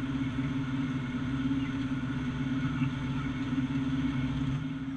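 Tractor pulling a pull-type forage harvester through standing corn while chopping silage: a steady low engine drone under load, with the chopper's machinery running.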